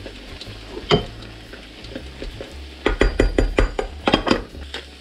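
A spoon stirring and knocking in a rice cooker's pot of rice and beans, with a sharp clink about a second in. Then a run of clinks and knocks as a glass lid is handled and set on the pot.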